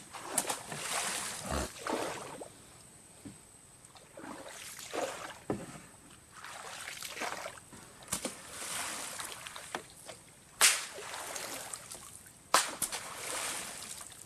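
A long wooden pole slapped down hard into river water again and again, each strike a splash, at irregular intervals of one to two seconds. The sharpest slaps come near the end. This is beating the water to scare fish into a set gill net.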